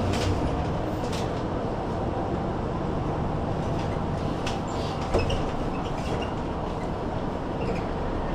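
City bus in motion heard from inside: steady engine and road rumble, with a few short clicks and rattles, the sharpest about five seconds in.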